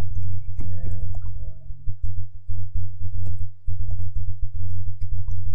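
Computer keyboard typing: a run of quick key clicks, over a loud steady low hum.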